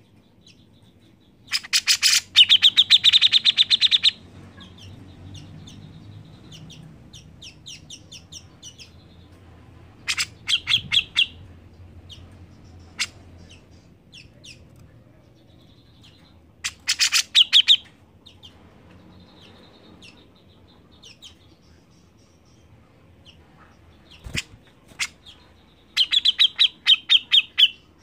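Cucak jenggot (grey-cheeked bulbul) singing: four loud bursts of rapid repeated notes, each one to two and a half seconds long, with softer scattered single notes between them.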